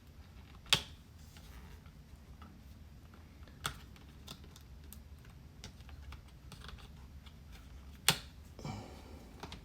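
Small sharp clicks and faint ticks as a stubborn RAM module is worked loose from its slot in a 2012 MacBook Pro 13-inch laptop. Three louder clicks stand out: about a second in, near four seconds and about eight seconds in.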